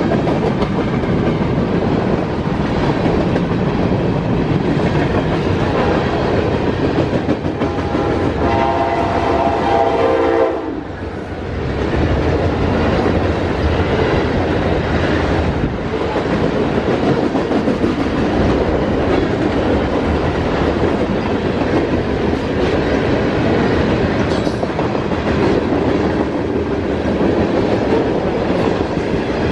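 Freight train cars rolling past a level crossing: a steady loud rumble with wheels clacking over the rail joints. About seven seconds in, a train horn sounds one held chord for about three seconds.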